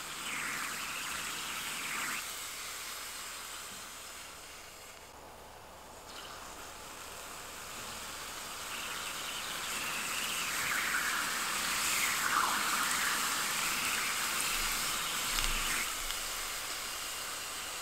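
Aerosol freeze spray hissing steadily from its straw nozzle into a cup of hot water, softening for a few seconds and then swelling again.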